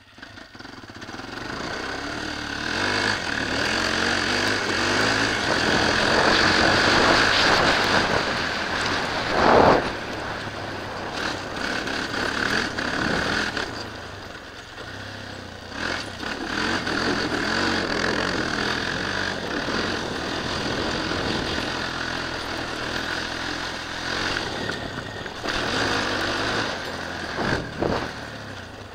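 Suzuki LT-Z400 quad's single-cylinder four-stroke engine under way on a dirt track, revving up and easing off as the rider rides the lap. A loud knock comes about nine and a half seconds in.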